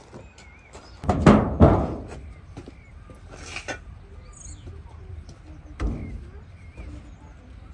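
Two heavy thumps with a rustle of thick cloth about a second in, as the rugs covering a brick pit oven are pulled off and dropped, then a duller knock near six seconds as a hand grips the oven's sheet-metal lid. Small birds chirp throughout.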